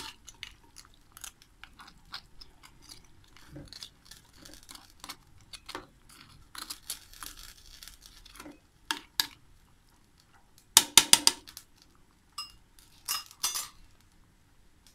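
A metal spoon clinking and scraping against a metal pot while stirring prunes cooking down in sugared water. The strokes come as scattered short clicks, with a burst of louder clinks a little past the middle and again near the end.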